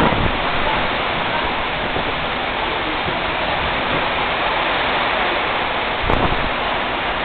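Heavy thunderstorm rain falling steadily, a dense even hiss. A brief low rumble swells about six seconds in.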